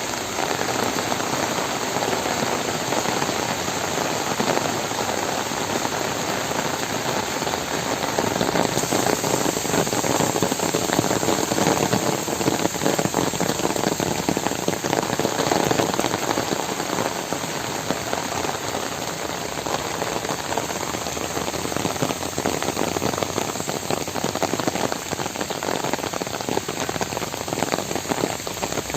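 Steady heavy rain, a dense patter of drops falling on surfaces.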